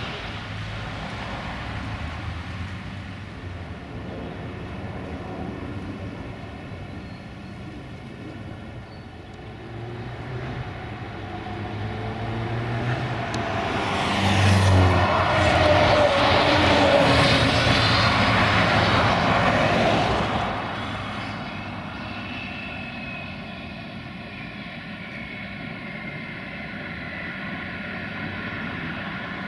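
A jet airliner's engines give a steady hum overhead. Then a Solaris Urbino 18 articulated bus drives close past, loudest for about six seconds midway before dropping off as it pulls away.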